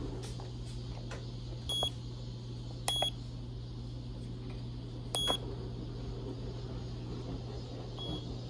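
Short high electronic beeps from a Kodak Mini Shot 2 Retro camera-printer as its buttons are pressed: three clear beeps spaced a second or two apart, then a fainter one near the end, over a steady low hum.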